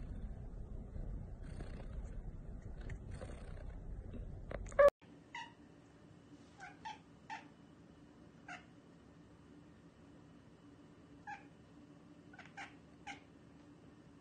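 A cat gives one loud short meow about five seconds in. After that, a cat makes a run of about ten short chirping calls, spaced out, some in quick pairs, over a quiet room.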